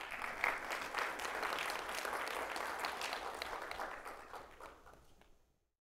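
Audience applauding, a dense patter of many hands clapping that dies away over the last couple of seconds.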